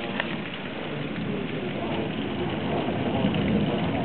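Steady rain during a thunderstorm, with a low rumble of thunder that swells a little in the second half.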